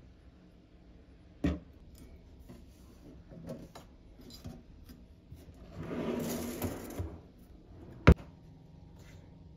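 Small objects being handled: a knock about a second and a half in, about a second of rustling around six seconds in, and a sharp click just after eight seconds.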